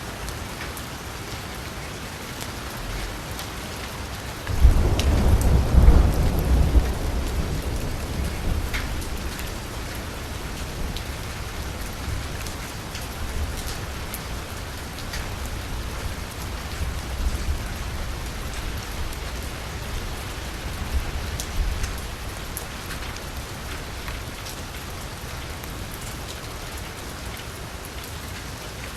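Gentle rain falling steadily on a street. About five seconds in, a roll of thunder breaks in suddenly, loudest a second or so later, then rumbles away over the next several seconds.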